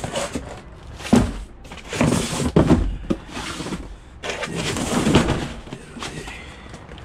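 A delivery van's doors being worked and its load handled: irregular knocks, thuds and short rattles, with a sharp knock about a second in and longer clattering bursts around two and five seconds in.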